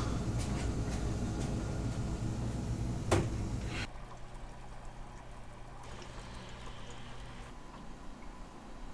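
Sloshing, pouring water for about four seconds, with one sharp knock about three seconds in. It then cuts off suddenly to a quieter room with a steady low hum.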